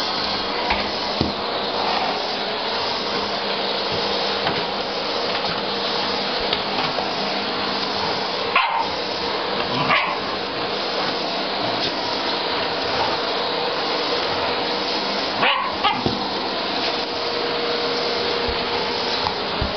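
Vacuum cleaner running steadily, with a Shiba Inu barking at it a few times over the motor noise: two short barks close together about halfway through and another later on.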